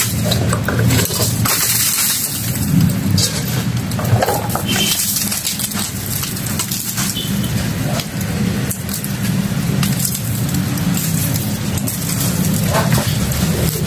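Rotten wooden coffin boards cracking, splintering and scraping as they are pried apart by hand and pulled out of a concrete tomb niche, in irregular crunches and knocks. Under it runs a steady low rumble.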